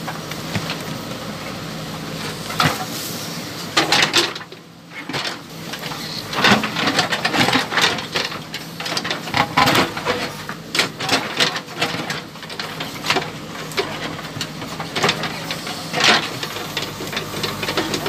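JCB backhoe loader's diesel engine running steadily while the backhoe digs, with irregular knocks and clatter of the steel bucket scraping and striking stones in rocky soil. The sound dips briefly about four seconds in.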